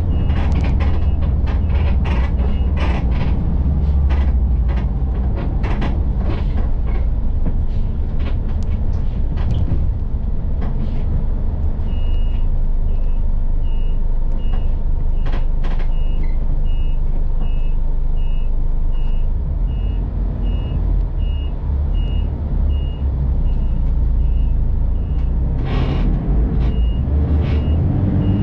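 City bus running on the road, heard inside the cabin: a steady low engine rumble with frequent rattles and knocks from the body. A high electronic beep repeats about every half second during the first few seconds and again through the second half.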